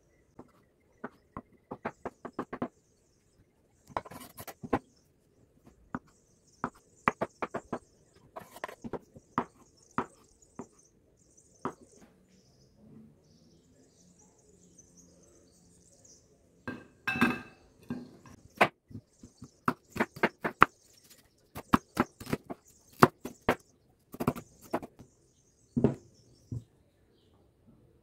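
Knife chopping hard-boiled eggs on a bamboo cutting board: runs of sharp taps as the blade strikes the board, several a second, in bursts with short pauses.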